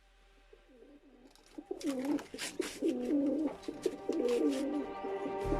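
Domestic pigeons cooing, several low coos following one another, with sharp taps and clicks mixed in from about a second and a half in.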